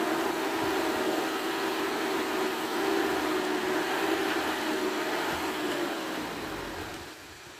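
Dump truck engine running steadily at raised revs while the bed is tipped and the load of soil slides out, with a steady mechanical hum over a rushing noise. The sound falls away near the end.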